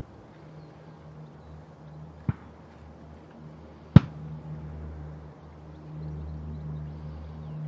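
Distant P-3 Orion's four Allison T56 turboprop engines droning steadily, a low hum that grows a little louder near the end. Two sharp clicks cut in, a faint one about two seconds in and a loud one about four seconds in.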